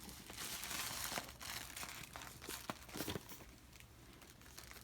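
Cardboard box and packing material being handled: crinkling and rustling, strongest in the first second and a half, with a few light knocks, then fainter.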